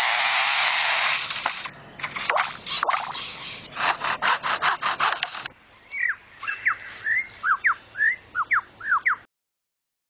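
Superb lyrebird mimicking a chainsaw: a sustained rasping buzz, then a run of rapid sputtering rasps. After about five and a half seconds it switches to a string of short whistled notes sweeping up and down, and the sound cuts off abruptly near the end.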